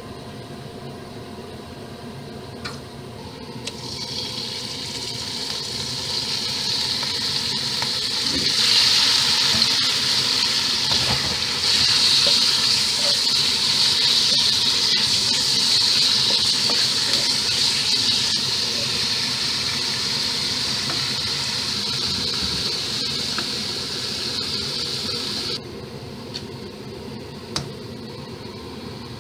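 Sliced meat sizzling in hot oil in a wok as it is stir-fried, a steady hiss. It starts a few seconds in, swells, then stops abruptly near the end.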